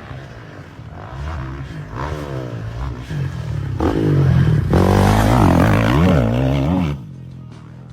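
Dirt bike engine revving up and down in quick swings as it is ridden hard, loudest between about four and seven seconds in, then dropping away suddenly.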